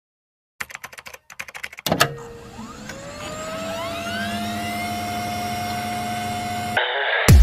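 Glitchy electronic sound effects: rapid stuttering clicks, a sharp hit about two seconds in, then a whine that rises in pitch and settles into a steady hum, with further rising tones over it. A short burst of static near the end cuts straight into the start of an electronic dance beat.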